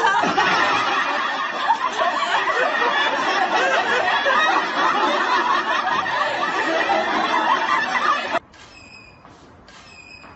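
Several people laughing hard together, many voices overlapping in a continuous fit of laughter that cuts off suddenly about eight seconds in.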